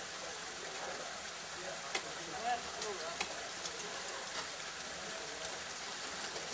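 Steady outdoor hiss with faint distant voices and a few light ticks between about two and four and a half seconds in.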